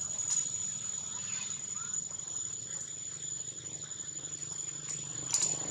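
Steady high-pitched drone of insects, with a few faint clicks about half a second in and again near the end.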